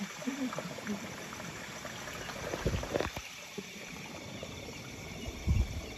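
Footsteps and rustling of leaves and stems as people walk through dense plantation undergrowth, with a few dull thumps. Insects chirp faintly in the background.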